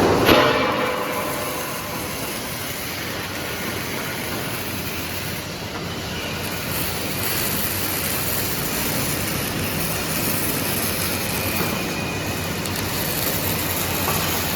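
Steady clattering noise of factory workshop machinery, with one loud knock right at the start.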